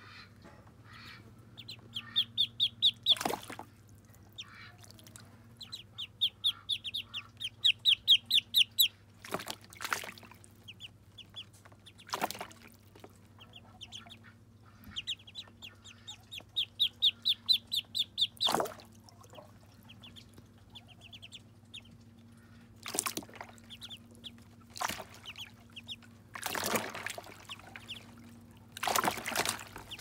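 Muscovy ducklings peeping in quick runs of short, high calls, about ten a second, in three bouts. Scattered splashes of water come in between, the loudest near the end.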